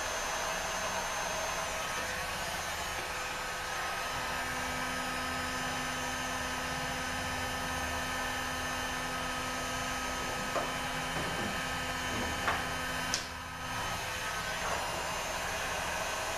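Electric heat gun blowing steadily, warming the brittle plastic solenoid connectors of a transmission valve-body harness to soften them. A few light clicks come near the middle.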